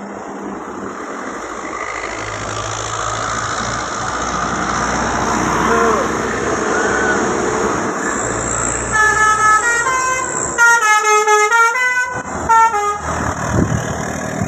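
A bus passing close, its engine and road noise swelling steadily, then about nine seconds in its Basuri 'telolet' multi-tone air horn plays a quick stepped melody for about four seconds.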